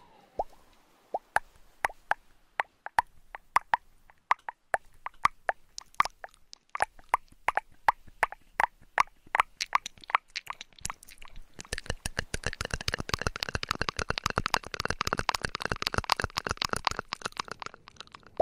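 Close-up ASMR trigger sounds: a series of sharp, separate plops, two or three a second, then a fast, dense crackle for about six seconds near the end.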